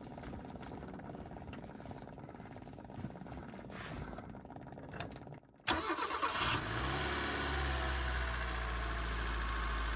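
Car engine started: after a few seconds of a faint, fast, even ticking, it catches suddenly about halfway through and settles into a steady idle. It is being run to check whether the radiator cooling fan keeps the overheating engine cool.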